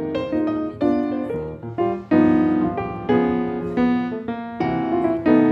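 Background piano music: a light melody over chords, note after note.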